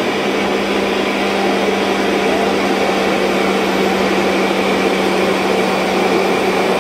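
Ninja Auto-iQ countertop blender motor running steadily at full speed, blending a protein shake: a loud even whir over a steady low hum.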